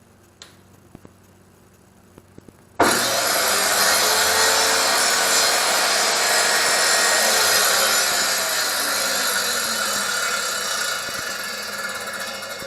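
Homemade table saw switched on: after a few faint clicks, the saw starts suddenly about three seconds in and runs loudly, with a tone that slowly falls in pitch, then fades near the end.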